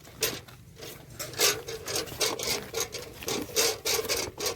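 Quick, irregular rasping strokes of cattle feed being stirred and scraped by hand in a container as wheat bran is mixed into a paste, with a steady hum underneath.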